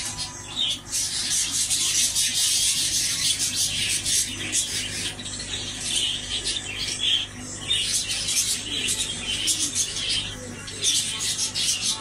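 Many small birds chirping and squawking together in a dense, continuous chorus of short high calls.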